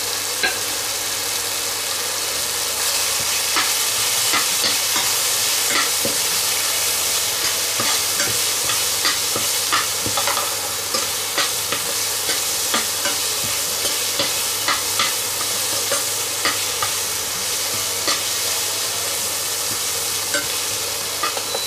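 Onions, tomatoes, green chillies and spices sizzling in a little oil in a non-stick frying pan, stirred with a stainless-steel slotted spoon. The spoon scrapes and taps the pan in a steady rhythm of short strokes, more than one a second, from a few seconds in, over the constant sizzle of the masala base being sautéed.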